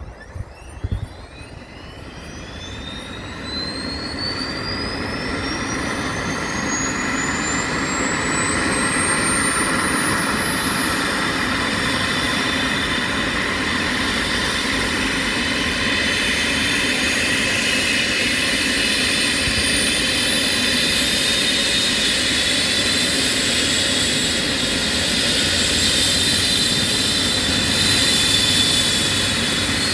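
Eurocopter EC135 T2+ helicopter's twin turbine engines starting up. A turbine whine climbs steadily in pitch while the overall sound builds over the first several seconds, then settles into a loud, steady running sound as the pitch keeps creeping upward. There are a couple of short knocks about a second in.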